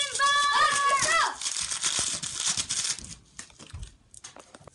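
A high child's voice calling out with a wavering pitch, followed by about two seconds of loud crackling noise that thins out into a few scattered clicks.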